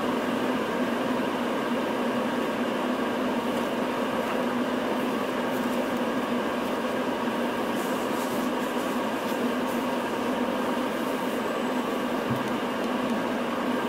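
Cabin noise aboard a Hino Rainbow mid-size non-step city bus: a steady drone of the diesel engine and running gear with a steady low hum and a few faint ticks.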